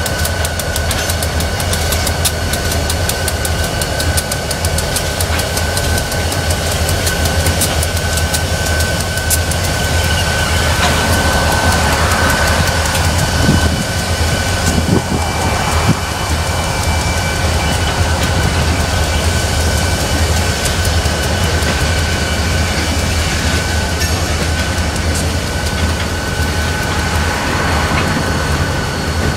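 Freight train passing close by: a lashup of several diesel locomotives running with a low rumble and a steady high whine, wheels clicking over the rails, then freight cars rolling past with a few louder knocks.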